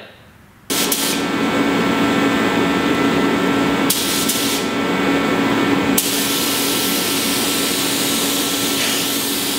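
Air spray gun hissing steadily as it atomises Plasti Dip top coat onto a car panel, starting about a second in, with a steady hum underneath.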